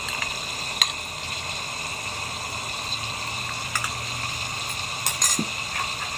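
Onion paste, green chillies and masala frying in hot oil in an aluminium pot: a steady sizzle, with a few sharp clicks about a second in, near four seconds and around five seconds.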